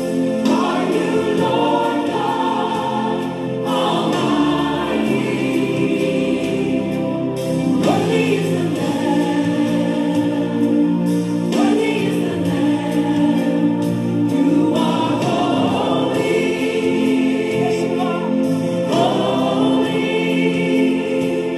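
Gospel worship song: a choir singing over steady accompaniment, continuing throughout.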